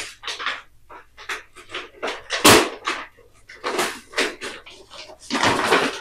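Cardboard delivery box and paper packaging being handled and opened by hand: a run of short rustles and crinkles, with one loud knock about halfway through and a longer rustle near the end.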